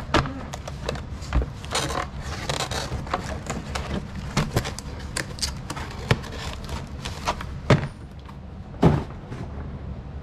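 Cardboard parts box and packaging handled with gloved hands: scraping, rustling and light knocks, with two louder thumps near the end, over a steady low hum.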